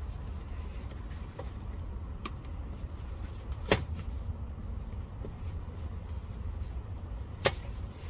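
Hand-working noise under a car: a steady low rumble, broken by two sharp clicks against the underbody about four seconds apart, with a few fainter ticks.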